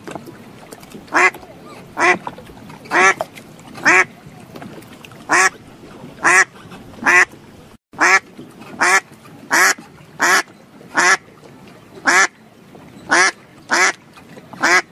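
A duck quacking over and over, short loud calls about one a second, with a brief dropout in the sound about halfway through.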